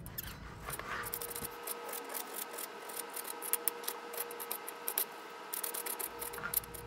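Kitchen knife chopping tomato and then green pepper on a wooden cutting board: a quick, irregular run of sharp taps as the blade strikes the board.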